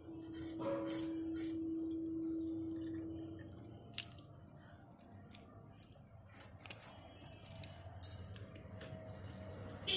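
Scattered light clicks and ticks of freshwater snail shells being handled and picked at with a metal pin, with a sharper click about four seconds in. A steady low hum sounds under the first three seconds or so.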